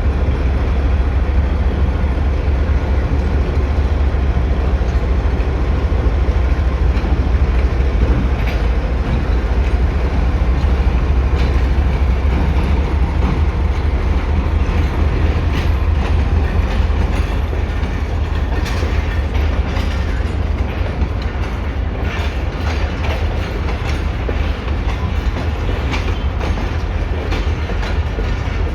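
GMCU-15 diesel locomotive chugging while shunting an empty rake of coaches: a steady deep engine rumble, with wheel clicks over the rail joints that grow more frequent in the second half.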